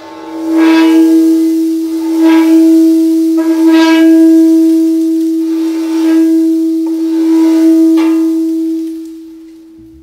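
A Chladni plate sounding one steady, loud, high tone with overtones, with brighter scratchy flares every second or two. The plate is vibrating in one of its resonant modes, so the sand on it gathers into nodal lines. The tone fades out near the end.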